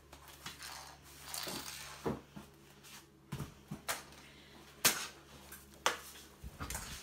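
A bristle brush swept across a laminate floor, with scattered light plastic knocks and clatters as the brush and dustpan are handled. The sharpest knock comes about five seconds in.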